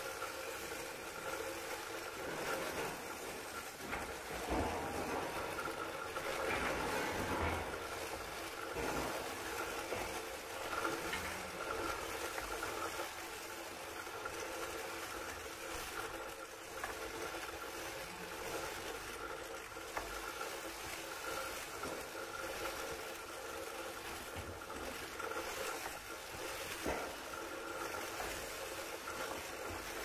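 Electric sheep-shearing handpiece running steadily as it clips a sheep's fleece: a constant mechanical hum with a steady whine.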